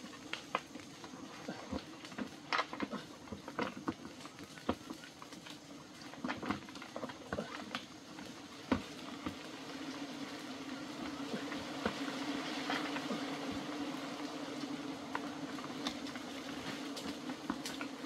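Bamboo stalks and branches creaking and snapping with sharp clicks as a man climbs. About halfway in, a steady low buzz of bees comes in and grows louder as the hive is smoked.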